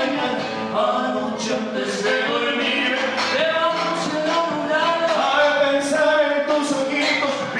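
Folk dance music: a voice singing over strummed guitar, with a steady beat.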